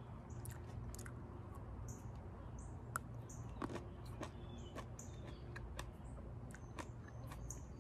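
Someone chewing a freshly picked cherry tomato, with soft wet mouth clicks, while small birds chirp now and then in the background.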